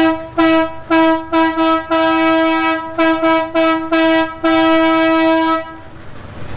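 The railcar's horn sounding in a rapid, uneven series of about a dozen steady one-pitch toots, mostly short, with a longer blast about two seconds in and a final long blast that stops near the end.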